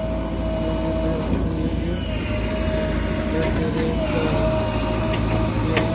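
JCB excavator's diesel engine running steadily under load, with a continuous whine over the rumble that shifts in pitch a few times.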